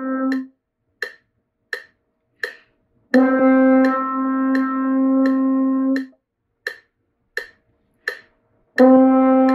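French horn holding long, steady notes on G, each lasting about four metronome beats (whole notes), with a metronome clicking about every 0.7 seconds in the gaps. One note ends just after the start, the next sounds for about three seconds from about three seconds in, and another begins near the end.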